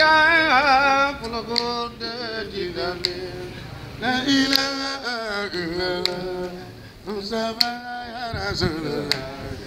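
Two voices, a boy's and a man's, singing a Baye Fall zikr (Sufi devotional chant) unaccompanied, in long melismatic lines with heavy vibrato. A higher voice leads, and a lower voice takes up the line about four seconds in, the two overlapping.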